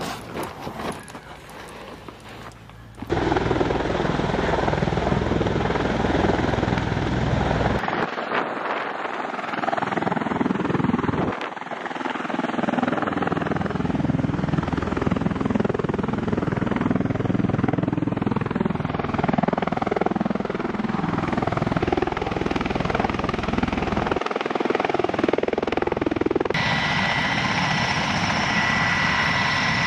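MV-22 Osprey tiltrotor aircraft running: a loud, dense rushing noise that starts suddenly about three seconds in and shifts abruptly several times. Near the end a steady high engine whine joins it.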